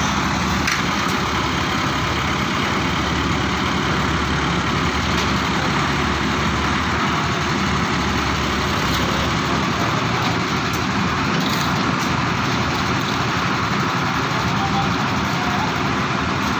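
A steady engine running without change, with a constant noisy hiss over a low hum.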